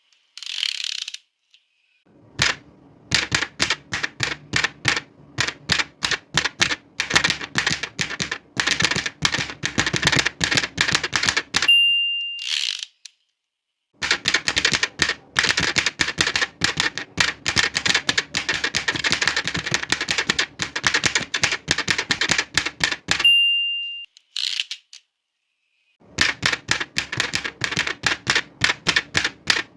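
Old manual typewriter being typed on in rapid runs of key strikes. Twice the margin bell dings at the end of a line and the carriage is swept back. A carriage return also comes about a second in.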